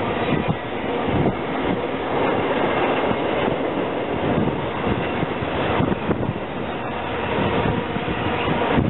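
Trailer-on-flatcar intermodal freight cars of a CSX train rolling past: steady noise of steel wheels on the rails, broken by frequent irregular clanks.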